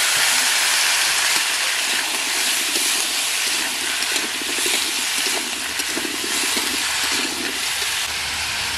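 Cubes of mankochu (giant taro root) sizzling in hot mustard oil in an iron karahi, a steady loud hiss just after they go into the pan.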